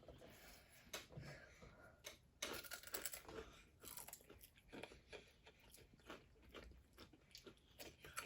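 A person chewing a crunchy pepper-flavoured bread snack, a run of short, irregular crunches that are densest and loudest a few seconds in.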